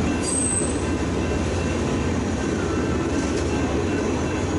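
Yellow Union Pacific passenger cars rolling past on the rails with a steady rumble, and a brief high-pitched squeak near the start.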